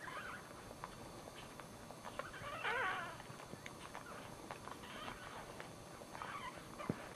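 Newborn dachshund puppy crying in thin, wavering squeals, the loudest a little under three seconds in and shorter ones around five and six seconds, with soft wet clicks of the mother licking it.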